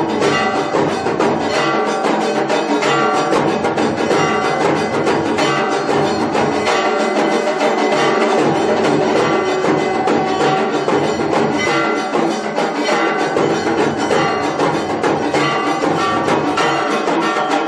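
Aarti music of steady, rhythmic percussion with ringing bells and clanging metal.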